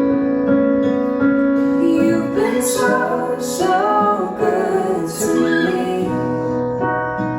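Worship song music: piano or keyboard playing held chords, with a female voice singing over them.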